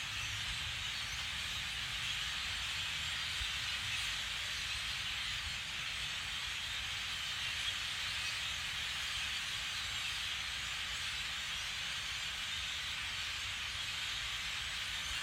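Steady, even hiss with a low rumble underneath; no distinct bird calls stand out.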